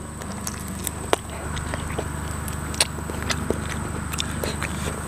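A person chewing and biting tender cooked bird meat close to the microphone, with scattered small mouth clicks over a low steady hum.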